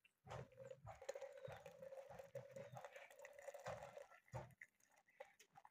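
Faint, steady trickle of hot milky tea poured from a metal pot through a plastic strainer into a plastic jug.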